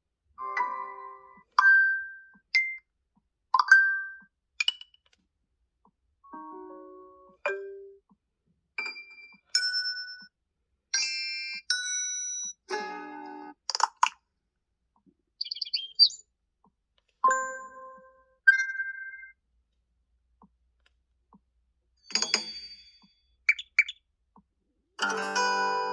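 Google Pixel 7a built-in alert tones played one after another: about twenty short electronic chimes and blips. Each is a different brief tone that fades quickly, with short gaps between them.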